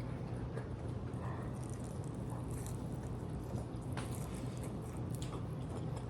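Chewing and eating sounds, soft and wet, with a few faint clicks, over a steady low hum of room noise.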